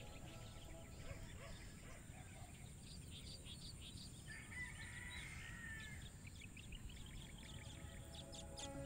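Birds chirping outdoors: many short high chirps, with one longer wavering call from about four and a half to six seconds in, over a faint low rumble.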